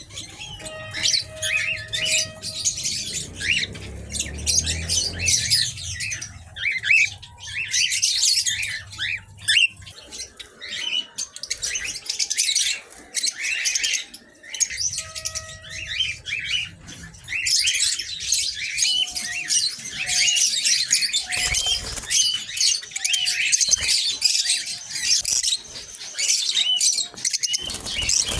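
A flock of small aviary birds chirping and squawking together in a dense, continuous chatter, with a few short whistled notes mixed in.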